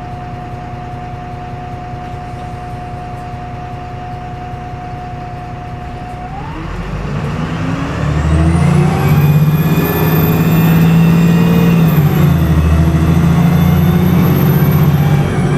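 VDL SB200 bus diesel engine with a steady whine while standing, then pulling away about six seconds in. The engine note rises and a high-pitched turbocharger whine climbs steeply and holds. It dips briefly, climbs again and eases off near the end.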